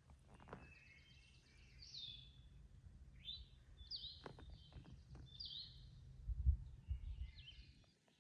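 Songbirds singing short, repeated downward-sweeping phrases, over a low rumble with a few thumps; the loudest thump comes about six and a half seconds in.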